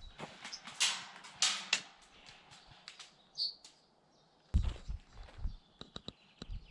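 Rustling and footsteps of someone moving through undergrowth, with two louder rustles about a second in. A brief high chirp, like a bird, comes midway, heavier steps from about the middle on, and a run of light clicks near the end.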